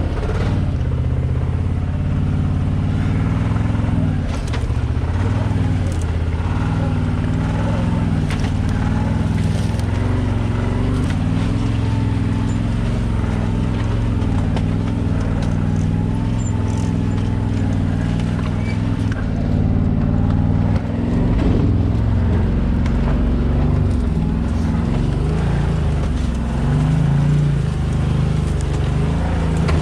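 Can-Am Maverick Sport XRC side-by-side's Rotax V-twin engine running at low, varying speed as the machine crawls over rough ground, with a few sharp knocks scattered through.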